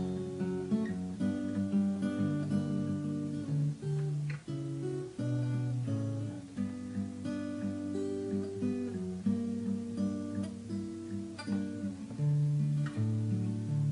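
Instrumental song intro on acoustic guitar: a sequence of plucked and strummed notes with no singing.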